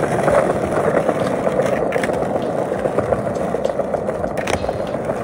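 Skateboard wheels rolling over stone paving tiles, a steady rumble, with a couple of sharp clacks about two seconds in and near the end.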